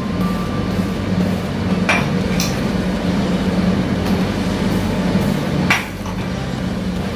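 A steel spoon clinking against a ceramic bowl and a glass tumbler as a thick milk drink is spooned into the glass. There are a couple of clinks about two seconds in and a louder one near the end, over a steady low hum.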